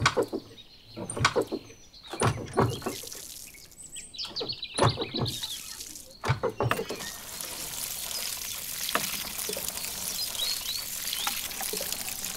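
Miniature DIY hand pump's lever being worked, clicking with each stroke and squeaking once, then water splashing from its tube into a small plastic pool as a steady stream from about halfway on.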